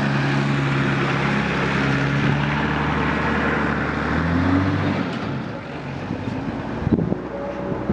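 1977 Ford Granada's 2.8 V6 engine running as the car drives. The engine note rises about four seconds in, then drops away, and a few knocks come near the end.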